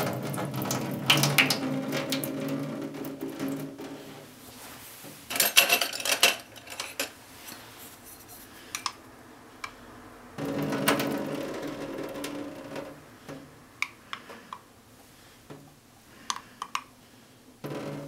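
Water poured out of a drinking glass splashing into a stainless steel sink, draining the hot water off a microwaved soft-cooked egg. It pours twice, with clinks and knocks of the glass between and after the pours.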